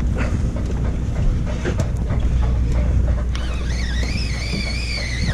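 Steady low rumble of a sportfishing boat's engine mixed with wind on the microphone, with scattered light clicks. A wavering, whistle-like tone joins about three seconds in and runs for about two seconds.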